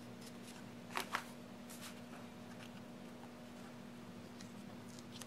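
Quiet paper handling of a sticker book and planner pages: two short crisp rustles about a second in, then a few faint light ticks, over a low steady hum.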